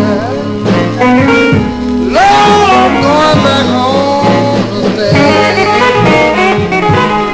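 1950s electric blues band recording played from a 45 rpm single: an instrumental break with an electric guitar lead whose notes bend up and down over the band.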